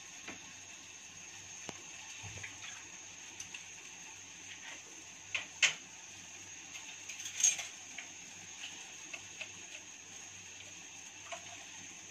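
Pot of spiced kadha with jaggery simmering on the stove: a faint steady hiss with small scattered ticks and pops of bubbling. A couple of sharper clicks come about five and a half seconds in, and a louder clatter about seven and a half seconds in.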